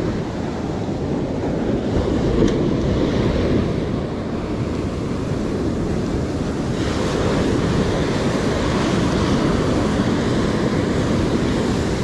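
Ocean surf breaking and washing up a sandy beach, with wind buffeting the microphone. The wash grows louder and hissier about seven seconds in as a wave runs up the sand.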